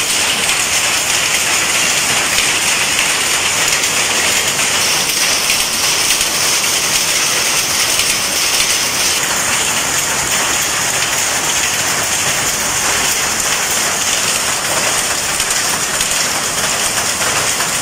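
Jacquard power looms running in a weaving shed: a loud, steady, dense mechanical clatter of many rapid clicks blended together.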